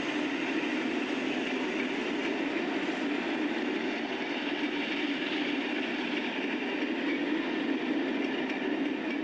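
A train running: a steady, even noise with no clear beat.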